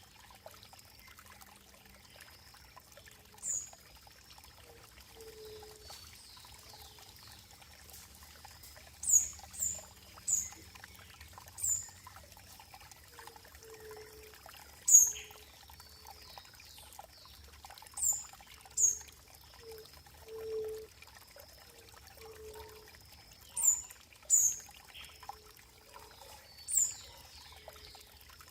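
Running water trickling steadily, with a bird calling in short, high chirps, singly or in quick pairs, every few seconds; the chirps are the loudest sounds.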